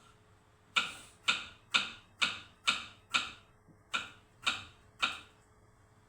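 A series of about ten sharp knocks, roughly two a second, with a short pause about halfway through.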